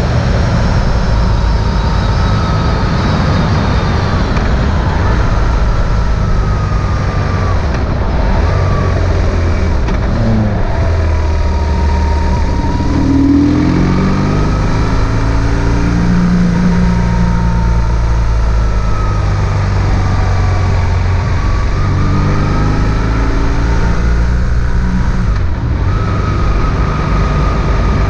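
BMW R1150 GS boxer twin engine running under way, with wind and road noise. The engine note rises and falls with throttle and gear changes, climbing clearly about halfway through and again later on.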